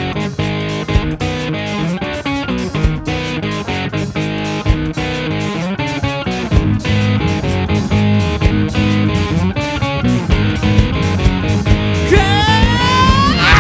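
Live rock band playing an instrumental intro, with guitar chords over a steady drum beat. Near the end a guitar slides up in pitch.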